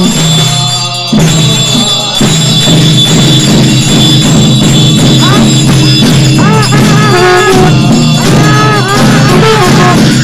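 Tibetan Buddhist ritual music: hand bells and cymbals ringing and clashing over a low, steady horn drone. From about six seconds in, a wind instrument adds a line of arching, ornamented notes.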